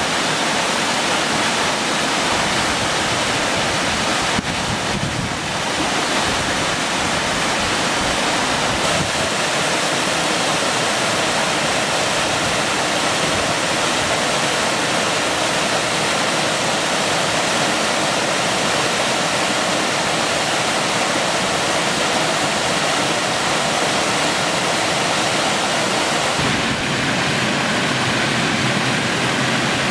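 Waterfall on a mountain river pouring over rock into a pool: a loud, steady rush of falling water. The rush shifts slightly about four seconds in and again near the end.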